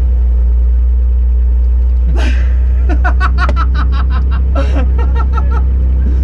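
BMW 325i E30's straight-six engine running at steady revs, a constant low drone, with a short stretch of a person talking in the second half.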